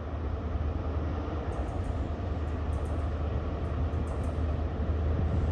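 Approaching passenger train: a steady low rumble that grows gradually louder.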